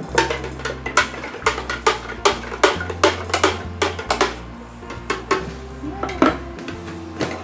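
A spoon stirring lemon juice and honey water in a clear plastic pitcher, clinking and knocking against its sides: a quick run of clinks for about four seconds, then a few spaced-out knocks. Background music with a steady bass plays throughout.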